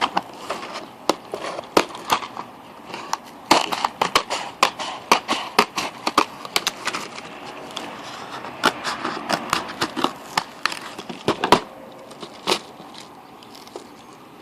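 A small cardboard box of Boston Baked Beans candy-coated peanuts being torn open and handled: many irregular sharp clicks and crackles of cardboard and hard candy pieces, thinning out near the end.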